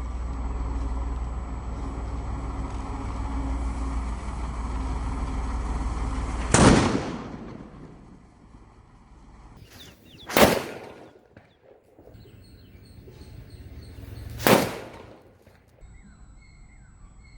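Single-bang firecrackers going off: three sharp, loud bangs about four seconds apart, each dying away over about a second. The first comes after several seconds of steady noise.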